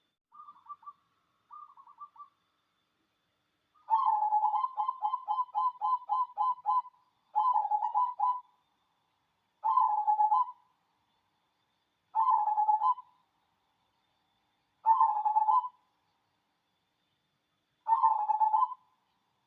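Zebra dove (perkutut) of the black 'cemani' variety cooing. Two soft short phrases come first, then a long run of quick staccato coos about four a second. After that it sings a series of separate one-second coo phrases repeated every few seconds.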